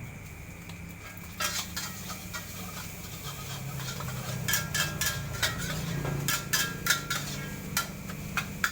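A metal spatula striking and scraping a wok while rice is stir-fried: sharp clanks with a brief metallic ring, scattered at first and then coming quickly and irregularly from about halfway through, over a steady low hum.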